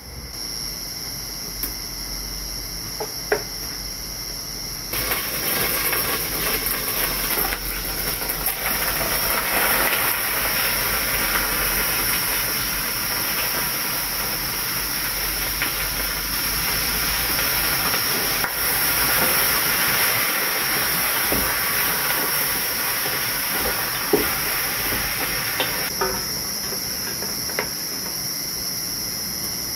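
A pot of water boiling on a wood-fired stove, giving a steady loud hiss of steam that starts about five seconds in and stops a few seconds before the end. Crickets chirr steadily throughout, with a few sharp crackles or clicks.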